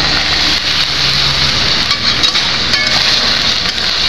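Pineapple chunks, bell peppers and onions sizzling steadily in hot oil in a stainless steel wok. A few light scrapes and clinks come from a metal spoon stirring them.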